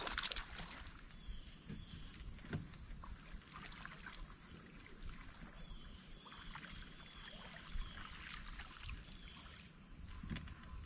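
Faint sounds of a bass being reeled in on a crankbait from a boat deck: scattered small clicks and knocks of the rod and reel over a steady low rumble. A sharp swish sounds right at the start, and a few faint short high chirps come through the middle.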